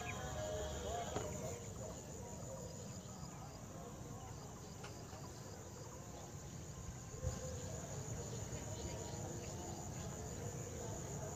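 Steady high-pitched chirring of crickets or similar insects over a low background rumble, with one brief thump about seven seconds in.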